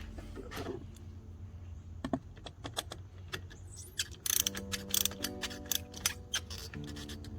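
Hand tools clicking and rattling on metal at a truck's battery terminal, in scattered strokes at first and then quick, dense runs from about four seconds in, over soft piano music.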